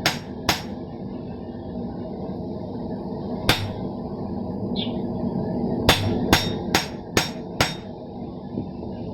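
Hand hammer striking hot steel plate to dish it into a cup: two blows at the start, a single blow about three and a half seconds in, then a run of five quick blows, about two a second, past the middle. A steady low rushing noise runs underneath.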